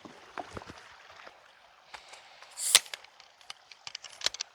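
Handling and movement noise: scattered small clicks and knocks, with one louder, sharp crunch a little under three seconds in and a quick run of clicks near the end.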